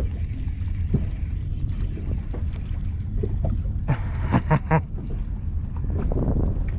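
Steady low rumble of wind and water around a small fishing boat drifting on a bay. A short cluster of three or four sharp pops comes about four seconds in.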